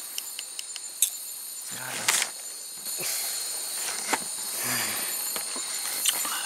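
Chorus of night insects, a steady high-pitched shrilling, broken by a few sharp clicks and a couple of brief low voice murmurs.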